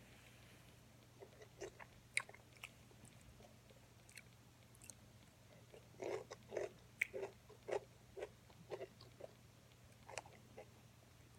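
Close-up eating sounds of a person chewing and biting hot wings and pickle: wet chews and crunchy bites in short, scattered bursts, busiest from about six to eight seconds in.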